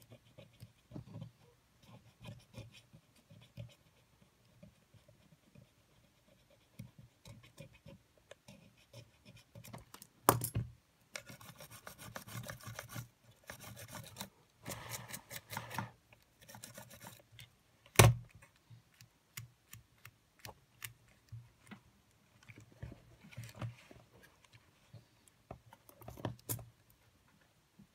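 Tweezers and fingers ticking, scraping and rubbing against the small parts of an opened Sony EX999 cassette Walkman mechanism, with two sharp clicks about ten and eighteen seconds in.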